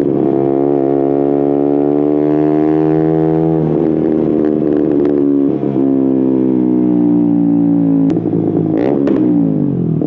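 KTM Duke 125's single-cylinder four-stroke running through an Akrapovic silencer with a decat link pipe, ridden under way. The engine note slides slowly down, with short breaks about a third and halfway through. In the last two seconds the pitch falls steeply as the bike slows.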